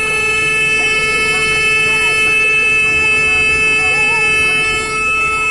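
Heard from inside a dump truck's cab: the diesel engine's low rumble under a steady, unbroken chord of high tones that runs throughout. The rumble grows a little heavier about halfway through.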